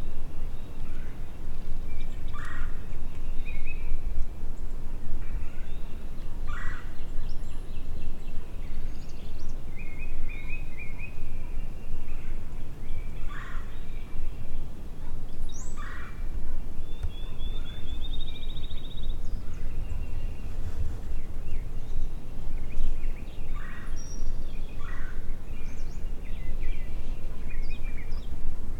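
Wild turkey gobbling several times, with gaps of a few seconds to several seconds between calls, over a heavy rumble of wind on the microphone. Small songbirds chirp and trill in the background.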